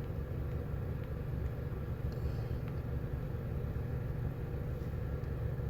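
Steady low background rumble, like a running engine or machine hum, with no clear events.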